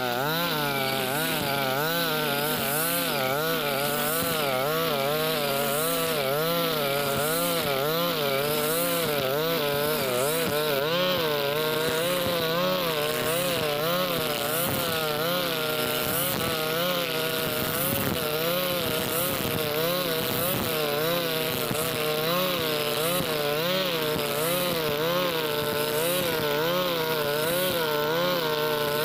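Husqvarna 542RBs 42cc two-stroke backpack brush cutter running at high throttle, spinning square nylon line through tall cogon grass. The engine note wavers up and down about once a second as the cutter is swung from side to side through the grass.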